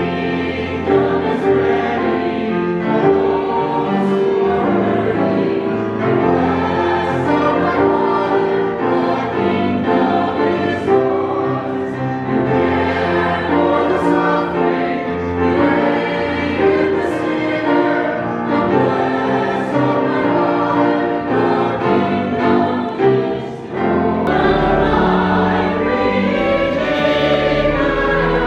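A choir singing a slow hymn in sustained chords.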